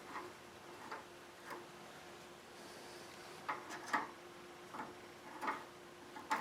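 Faint, irregular light taps and clicks of hand work at a radiator being soldered: tools, flux and solder touching the metal core.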